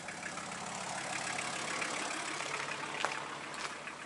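Minivan engine idling steadily, with a couple of faint clicks near the end.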